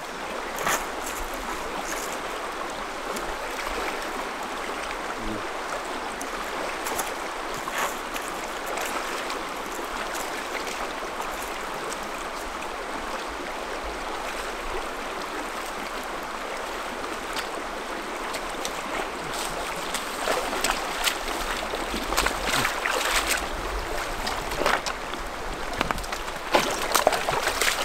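Shallow rocky creek flowing over stones, a steady rush of water. In the last several seconds sharper splashes and knocks rise over it as people wade through with trekking poles.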